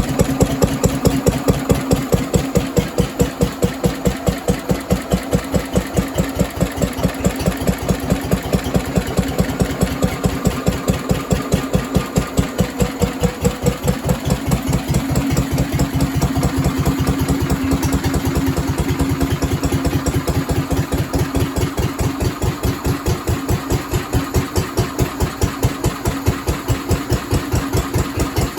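Vintage Lister D single-cylinder stationary engine running steadily off load, thumping at an even beat of about four or five firing strokes a second.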